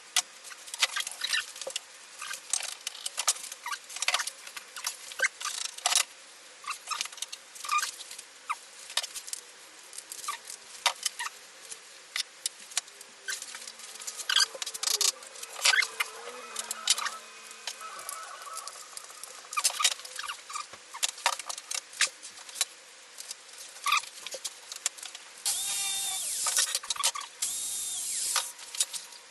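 Irregular small clicks, taps and scratches of hand work at a workbench. About three seconds from the end there is a harsher rasping stretch.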